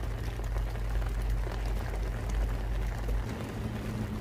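Light rain falling, a steady watery hiss with faint scattered ticks, over a low rumble that drops away about three seconds in.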